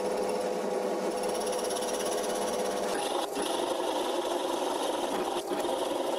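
Cheap benchtop drill press running steadily as a spade bit bores into green oak, with two brief knocks about three and five seconds in.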